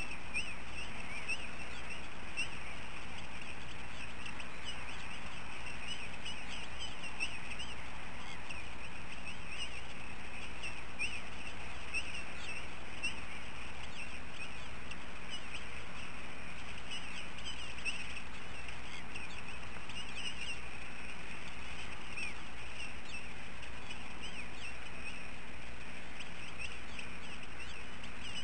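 Continuous chatter of many short bird chirps over a steady low hum.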